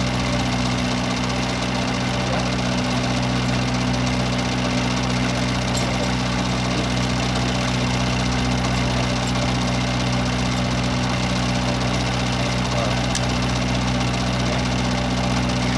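A steady, even engine-like drone with a low hum that does not change.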